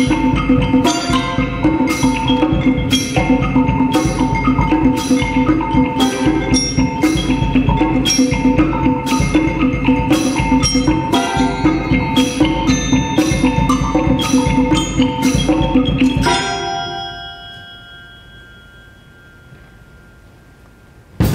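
Percussion ensemble playing pitched mallet percussion in steady repeated figures over a regular pulse of sharp strokes, about two a second. The playing stops together about three-quarters of the way through, leaving a few notes ringing on and slowly fading.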